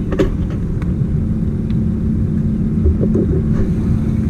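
Bass boat's outboard motor running at low speed: a steady low rumble with a faint constant hum.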